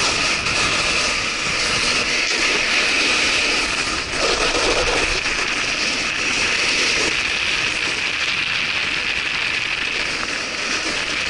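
Steady rushing, scraping noise of a snowkiter's board or skis sliding over icy spring slush, with wind on the microphone.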